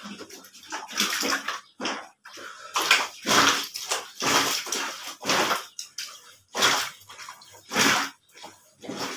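Clothes being washed by hand on a wet concrete floor: a series of short, wet swishing and scrubbing sounds of soaked cloth being worked, roughly one a second.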